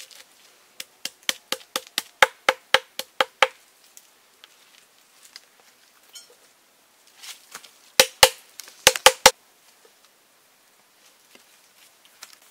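Knife chopping on a cutting board: a run of about a dozen sharp strikes at roughly four a second, then after a pause a second, quicker run of about six.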